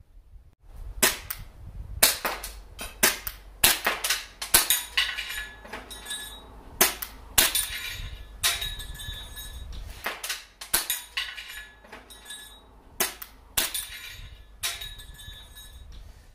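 Marushin gas-blowback Nambu Type 14 airsoft pistol firing a long string of single shots at an uneven pace, each a sharp crack of the gas-driven slide cycling. Several shots are followed by a brief metallic ring as BBs hit small steel plate targets.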